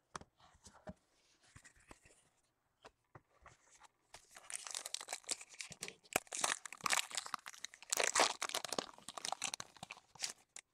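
A Prizm baseball card pack being torn open. Sparse light clicks and taps of cards being handled, then from about four seconds in, several seconds of crackling, crinkling wrapper.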